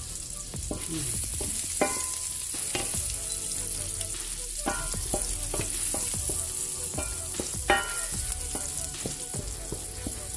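Onion frying in olive oil in a pan, sizzling steadily while a plastic spoon stirs and scrapes it against the pan, with repeated clicks and knocks and a couple of sharper knocks.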